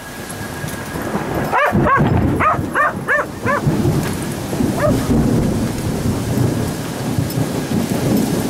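A dog barking in a quick run of about eight high yelps, then once more, over rolling thunder and steady rain.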